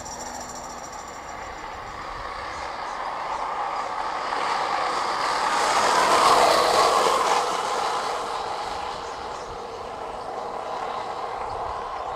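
Rolling road noise on asphalt as a vehicle passes: an even rumble swells to a peak about six seconds in, then fades away. The tail of background music dies out in the first second or two.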